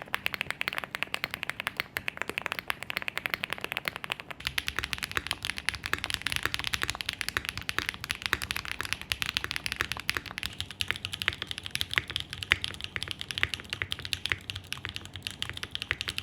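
Rapid, continuous typing on a mechanical keyboard: a dense run of keystroke clicks. About four seconds in the sound changes, with a low steady hum joining and brighter clicks.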